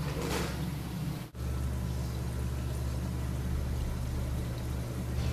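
Saltwater aquarium's running water and pump: a steady low hum under an even wash of trickling water, dropping out for an instant about a second in.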